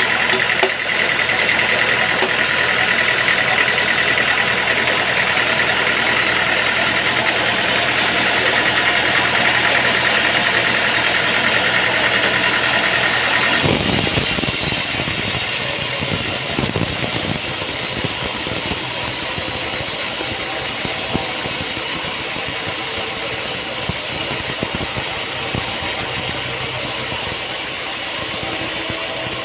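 Machinery running steadily, with a high whine over it. About halfway through, the sound switches abruptly to a different, rougher machine noise without the whine.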